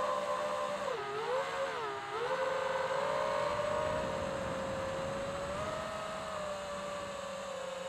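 FPV quadcopter's electric motors and propellers whining steadily. The pitch dips sharply twice, about one and two seconds in, as the motors slow, then holds roughly level.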